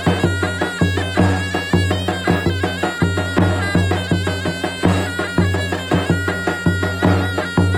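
Davul and zurna playing Turkish folk music: a shrill, reedy zurna melody held over steady, repeated davul drum beats.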